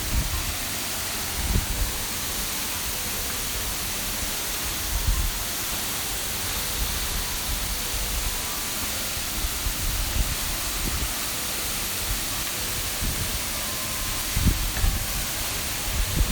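Waterfall or mountain stream water rushing as a steady hiss, with occasional low thumps on the microphone.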